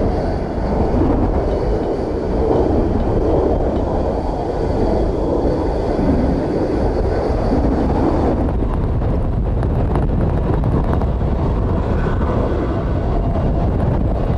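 Boeing 727-200F's three Pratt & Whitney JT8D-17R turbofans running with a steady low rumble and a faint high whine, mixed with heavy wind buffeting on the microphone.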